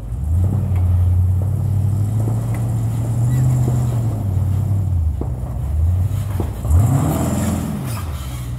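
Rock-crawling Jeep engine running at low revs as the Jeep climbs over boulders, its pitch shifting with the throttle. About two-thirds of the way in, a quick rev rises and falls.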